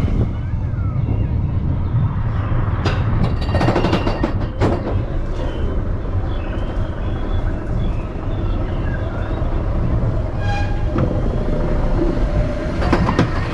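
Ride vehicle rolling along its track: a steady low rumble, with bursts of clacks and rattles about three to five seconds in and again near the end.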